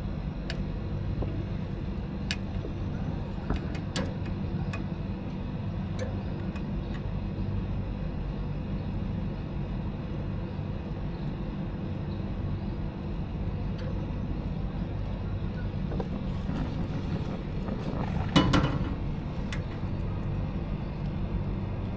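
Steady low mechanical hum, with scattered light clicks and a brief louder clatter near the end.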